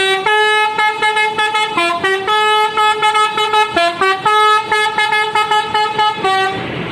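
Bus telolet horn (Basuri V3 multi-tone air horn) playing a quick tune of short and held notes, jumping between pitches. It cuts off about half a second before the end.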